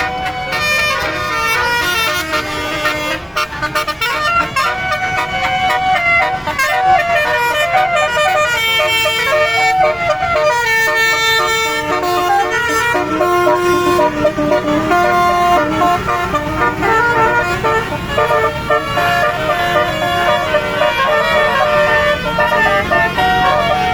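Tour bus's telolet basuri horn playing a melody: a run of held notes stepping up and down in pitch, several tones sounding together.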